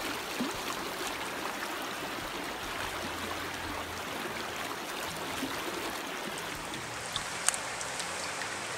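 Steady rush of flowing river water, with a brief sharp click near the end.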